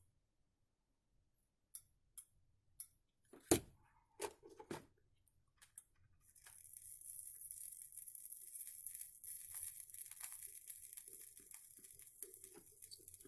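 A few light clicks and taps. Then, about six seconds in, a crackling sizzle starts as the soldering iron heats solder paste on the power strip's bus bar, and it fades toward the end.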